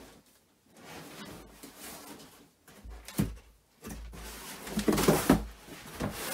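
A heavy cardboard-wrapped mattress being shoved and handled, with scraping and rustling and dull thumps about three seconds in and again around five seconds in.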